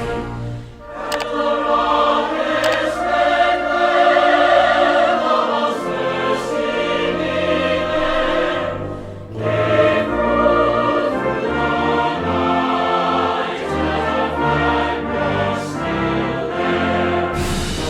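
Background music: a choir singing sustained chords over orchestral accompaniment, in a grand classical style.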